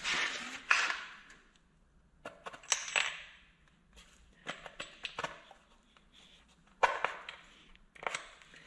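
A bolted wooden 2x6 board and its metal bolts and washers being handled and fitted into a metal truck step box: scattered clicks, clinks and knocks with short scrapes. The sharpest knocks come just under a second in and again about seven seconds in.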